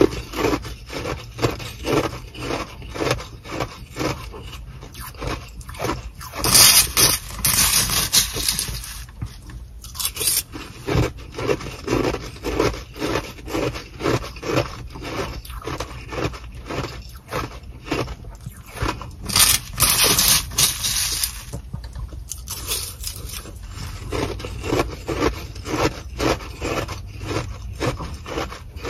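Sonic nugget ice being chewed with steady rapid crunching, along with a metal spoon scraping and scooping ice from a plastic bag. Two longer stretches of loud scraping and crinkling come about seven and twenty seconds in.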